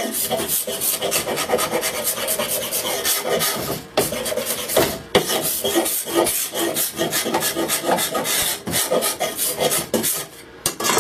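A file worked rapidly back and forth across a wooden saw part, a steady rasping with short breaks about four and five seconds in, easing off near the end.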